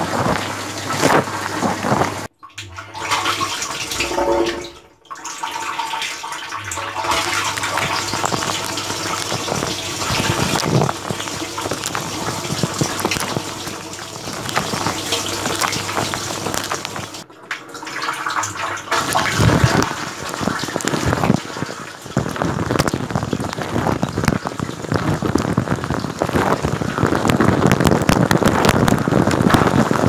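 Water from a running Electrolux dishwasher's spray arms spraying and splashing over the dishes and racks, heard from inside the tub. The noise drops out briefly a few times, about two and five seconds in and again near the middle.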